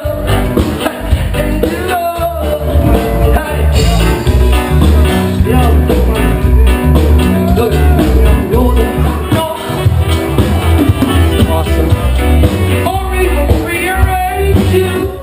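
A song with singing over a strong bass beat and instruments, cutting off abruptly at the end.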